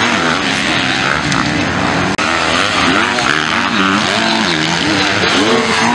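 Motocross dirt bike engines revving hard, the pitch climbing and dropping over and over as the bikes accelerate and shift past on the track. The sound drops out for a moment a little over two seconds in.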